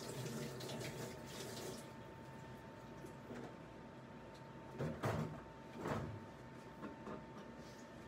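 Faint household sounds from off-camera: water running or splashing briefly, then two louder clunks about five and six seconds in, over a faint steady tone.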